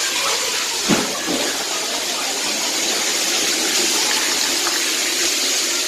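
Steady rush of water, heavy storm rain and water pouring in through a leaking, storm-damaged roof, with a single knock about a second in.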